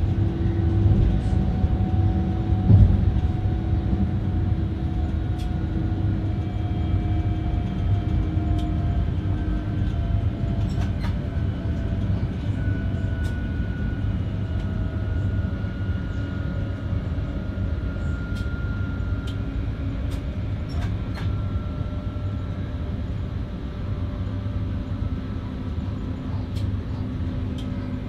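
Stadler FLIRT 3 electric multiple unit running along the line, heard from inside the driver's cab: a steady rumble under a faint drive whine that slowly shifts in pitch. There are scattered light clicks and one louder knock about three seconds in.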